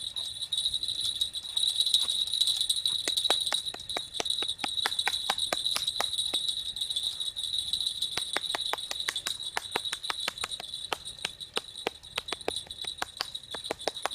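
A steady high-pitched insect trill, with a run of light, sharp clicking or tinkling on top that starts about a second and a half in and grows faster and denser in the second half.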